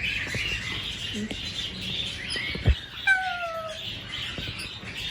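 A flock of small aviary birds chirping continuously over one another. About three seconds in, a single bird gives a short, clear call that falls in pitch. Just before that call, a sharp knock sounds.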